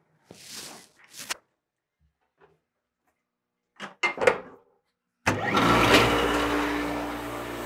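Metal clanks as the door of a cabinet parts washer is swung shut and latched. About five seconds in, the washer starts running abruptly, with a steady hum and a loud hiss, to clean the freshly machined cast-iron cylinder head.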